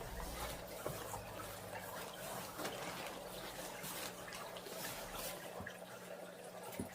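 Faint rustling and light ticking of packing material being handled while a plant is unpacked, over a steady low hum.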